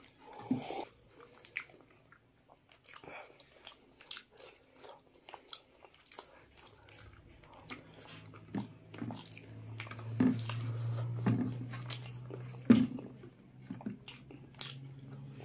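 Close-up mukbang eating by hand: chewing and biting of rice, chicken and beef, with scattered short clicks and fingers working the food on a steel plate. From about seven seconds in, a low steady hum runs underneath.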